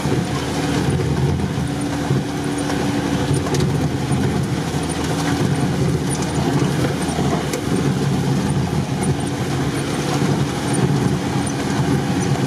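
Off-road 4x4's engine running steadily as the vehicle drives through mud, heard from on board, with scattered clicks and rattles.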